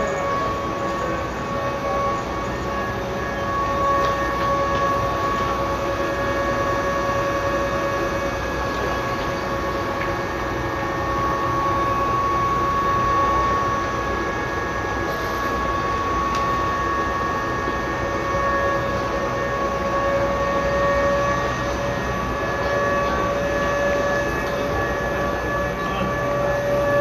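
Electric train standing at a station platform, its onboard equipment giving a steady, unchanging hum of several pitches over general station noise.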